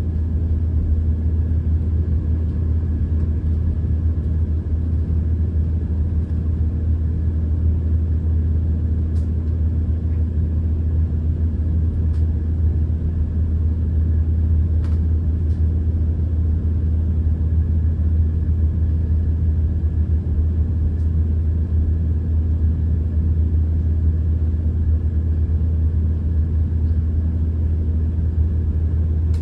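Steady low rumble of a Class 170 Turbostar diesel multiple unit's underfloor diesel engine, heard from inside the passenger saloon. A faint steady whine sits above it, and a few light clicks come through.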